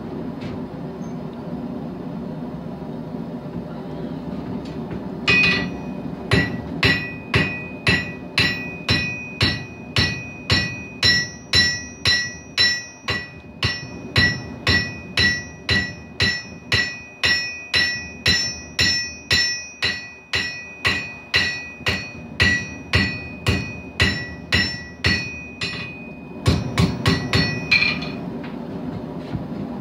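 Blacksmith's hammer striking hot steel on an anvil, blows landing about two a second with a ringing note on each, starting about five seconds in and ending near the end in a quick flurry of faster blows. A steady roar of the running forge lies underneath.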